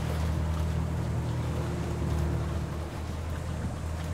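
Small fishing boat's engine and hydraulic net hauler running with a steady low hum, with a faint higher whine for a couple of seconds midway.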